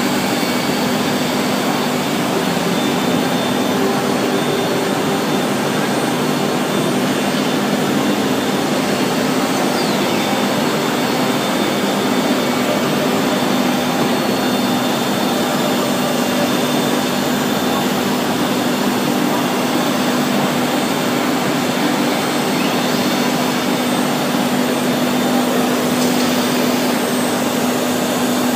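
3-axis CNC router's spindle running and milling a copper plate: a loud, steady whirring noise with a constant low hum, without a break.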